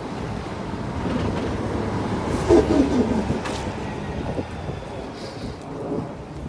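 City street traffic: a steady rumble of passing vehicles, with a brief falling tone about two and a half seconds in.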